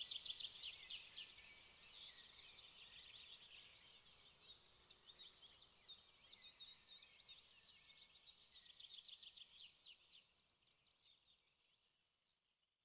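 Faint, rapid high chirping of birds, many quick downward-sweeping chirps in close succession, fading out near the end.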